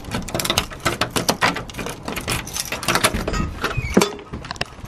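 A dense, irregular run of clicks, knocks and rustles, with a sharper knock about four seconds in.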